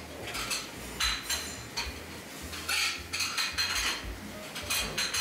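Dishes and cutlery clinking in a buffet dining room: an irregular run of short, ringing clinks and clatters, several close together about a second in and again from about three seconds on.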